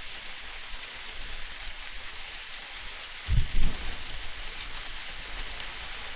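Old wooden ship ambience: a steady, rain-like hiss of water, with two low thuds in quick succession a little past halfway.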